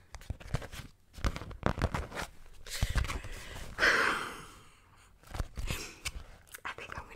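Beeswax-coated cotton food wrap crackling and crinkling as it is handled and rubbed close up against the microphone, in quick irregular clicks. A short breathy laugh comes about four seconds in.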